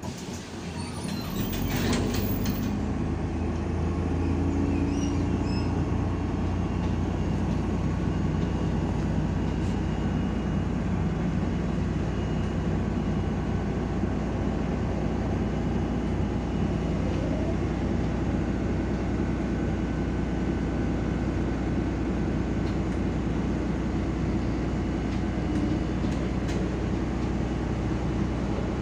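Diesel engine of a MAZ-105 articulated city bus heard from inside the cabin: a steady low drone that swells a second or two in as the bus pulls away, then holds even as it drives on slowly. A brief clatter near the start.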